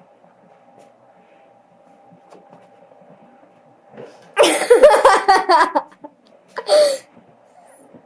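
A person laughing loudly for about a second and a half, about halfway through, then laughing again more briefly a second later, without words. Before that there is only a faint steady hum.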